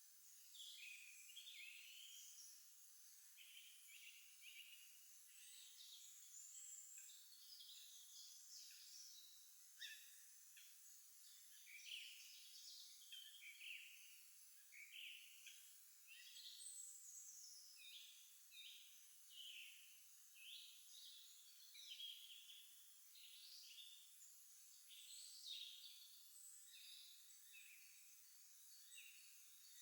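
Several small songbirds singing at once in spring, a faint, continuous mix of short chirps, trills and slurred whistled phrases.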